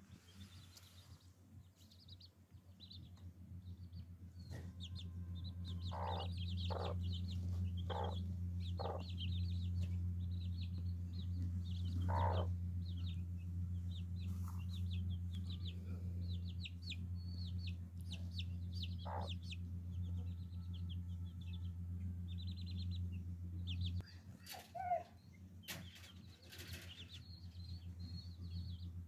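A brood of chicks peeping continuously with short high chirps, while a hen gives clucks now and then, four of them about a second apart and a louder one soon after. A low steady hum runs underneath and stops near the end.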